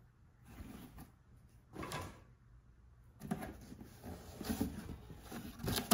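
Handling and rustling of a cardboard box and a jacket's fabric: a few soft brushes at first, then busier rustling and scraping from about three seconds in.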